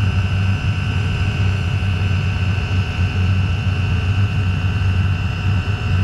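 Chinese diesel heater running hot: a steady low burner rumble with a steady high-pitched whine over it.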